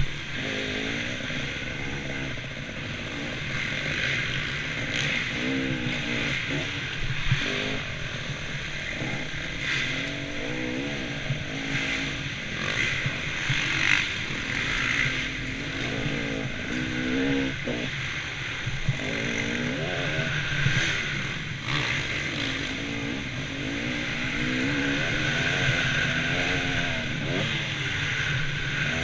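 Motocross bike engine revving up and dropping off over and over as it is ridden hard around a dirt track, with a few sharp knocks along the way.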